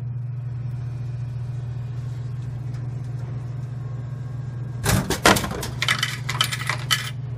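A bottle of water drops out of a vending machine into its delivery bin: a heavy thud about five seconds in, then about a second of clicks and clatter, over a steady low hum.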